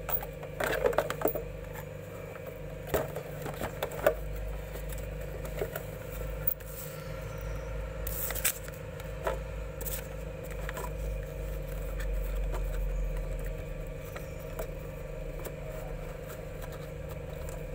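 A cardboard headphone box being closed and handled: the flaps and the packaging rub and scrape, with scattered light clicks and knocks, most of them in the first couple of seconds. A steady low hum runs underneath.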